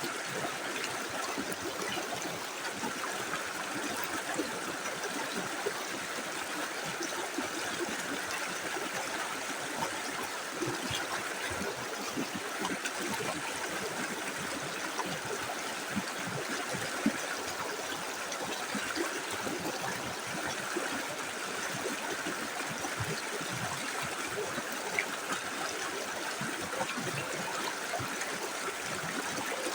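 Small river flowing steadily over stones, an even rushing with trickling and gurgling throughout.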